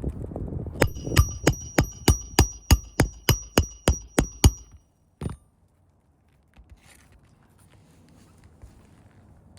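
Hammer driving a nail: a run of about a dozen quick strikes, three or four a second, each with a high metallic ring, then one last blow about a second later.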